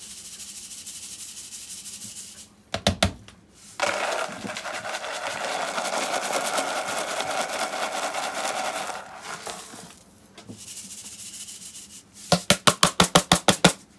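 Filled capsules and salt rattling in a stainless steel mesh strainer shaken over a sink, sifting off the salt and loose powder: a long spell of steady grainy rattling, then near the end a quick run of about ten sharp, even knocks.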